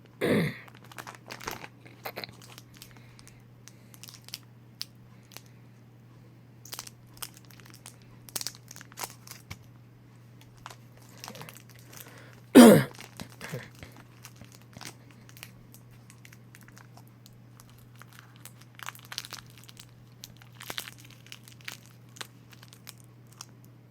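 Gingerbon ginger candy packaging crinkling and being torn open in many short crackles. Two louder sounds dropping in pitch come right at the start and about halfway through. A steady low hum runs underneath.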